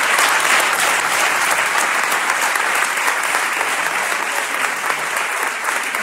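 Large audience clapping, the applause slowly dying down toward the end.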